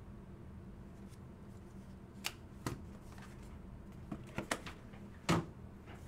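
A handful of short, sharp clicks and taps from trading cards and hard plastic card holders being handled and set down, about six in all, the loudest near the end, over a low steady hum.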